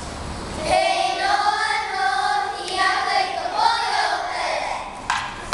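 Children's voices singing a hula song together, the song ending about five seconds in, with the first claps of applause right at the end.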